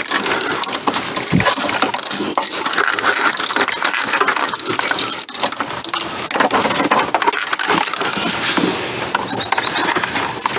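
Steady run of metallic clinks, clicks and rattles from hand tools and loose metal parts being worked, typical of wiring and parts being pulled and cut out of a Jeep.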